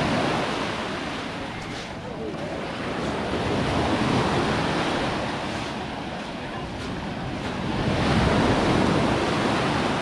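Small sea waves breaking at the shoreline and washing up a gravelly beach, swelling and fading about every four seconds, three times.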